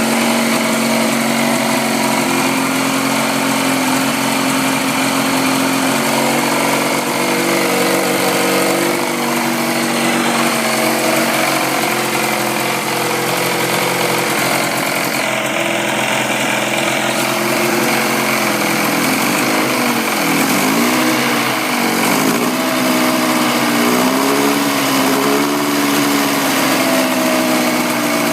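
Force 50 hp two-stroke outboard motor running steadily, its pitch wavering up and down a few times in the last third as the engine speed changes.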